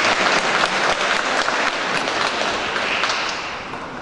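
Congregation applauding, many hands clapping, with the clapping dying away near the end.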